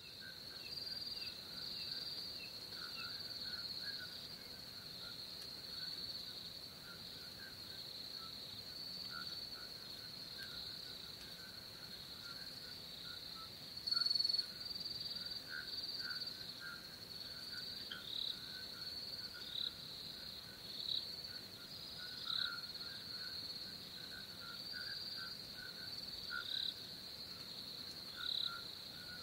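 Night-time ambience of crickets trilling steadily at a high pitch, with many scattered shorter chirps at a lower pitch and one brief louder chirp about halfway through.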